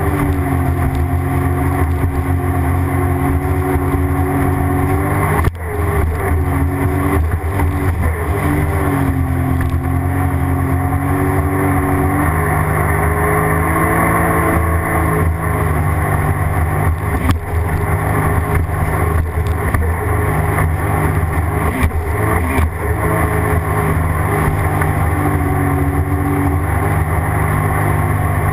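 Sea-Doo GTX jet ski engine running at a steady cruise, its pitch dipping and rising a little now and then, with a few sharp knocks as the hull meets chop.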